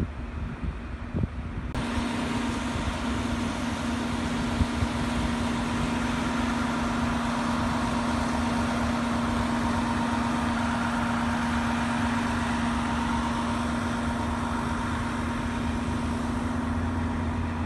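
Vehicle engine idling with a steady drone that cuts in suddenly about two seconds in.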